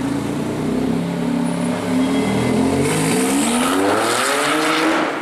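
Porsche 991 911 Turbo S's twin-turbo flat-six running loud, holding a steady note and then rising steadily in pitch from about three seconds in as the car accelerates away.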